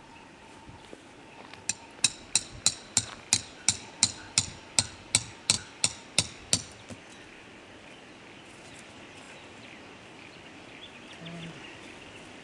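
A tent peg for a guide rope being hammered into the ground: about fifteen sharp, ringing strikes, roughly three a second, starting nearly two seconds in and stopping a little past six and a half seconds.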